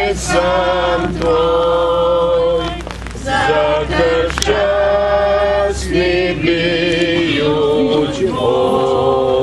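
A congregation singing a Croatian hymn together, unaccompanied, in long held notes phrase by phrase with short breaks for breath.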